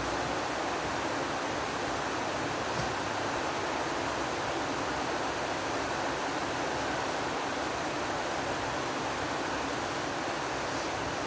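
Steady, even rushing noise with no speech, unchanging throughout, with a faint click about three seconds in.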